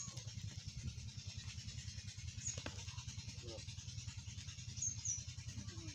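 A goat gives a short, faint bleat about three and a half seconds in, over a steady low hum that pulses quickly. A few faint high chirps come near the middle and toward the end.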